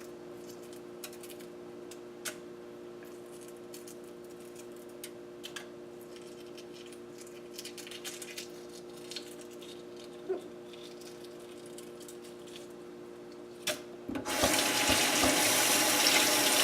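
Faint clicks of hard-boiled eggshell being peeled over a steady hum. About fourteen seconds in, a kitchen faucet turns on and water runs loudly into the sink.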